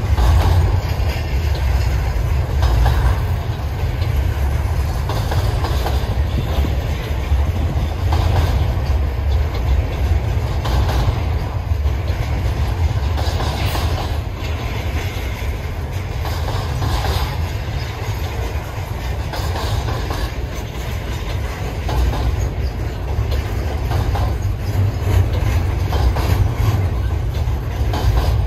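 Double-stack container freight train rolling past at close range: a steady low rumble of steel wheels on rail, with recurring clacks as the wheel sets pass over the rail joints.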